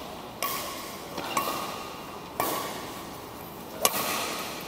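Badminton rackets striking a shuttlecock back and forth in a rally: four sharp hits about a second apart, each echoing in a large hall.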